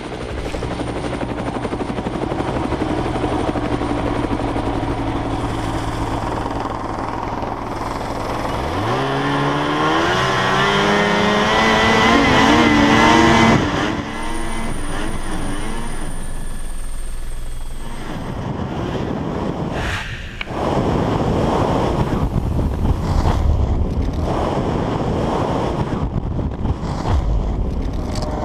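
Snowmobile engine running, then revving up with a steadily rising pitch for several seconds before cutting off; later a rough rushing noise broken by repeated knocks and thumps.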